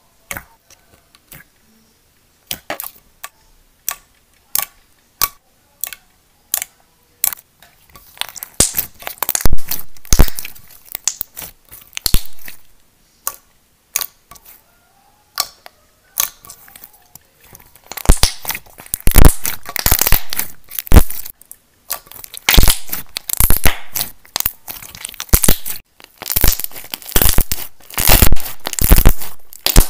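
Slime being poked and squeezed by fingers. Separate sharp clicking pops come a little over once a second at first, then from about a quarter of the way in denser crackling and popping, loudest in the last third as the slime is pressed and folded in the hands.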